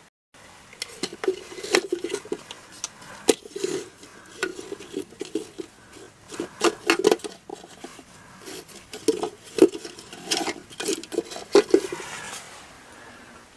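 Irregular clinks and clatters of small hard objects being handled, in clusters over about twelve seconds.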